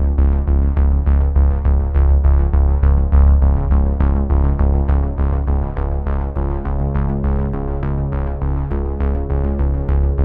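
Background music: synthesizer with quick repeating notes over a sustained low bass.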